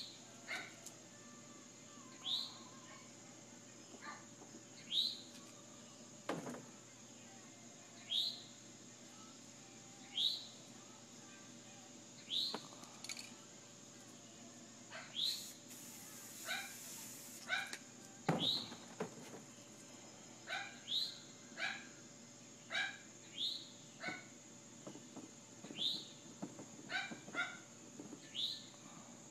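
An animal's short, high, rising calls, repeated every second or two and coming more closely together in the second half.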